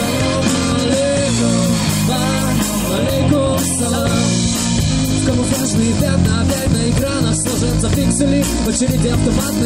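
Rock band playing live in a small rehearsal room: electric guitar, keyboard, drum kit and bass guitar together, with a steady beat.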